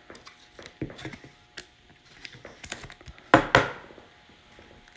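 Trading cards being handled: scattered small clicks and scrapes of card stock, then a louder pair of taps about three seconds in as the stack of cards is set down on the mat.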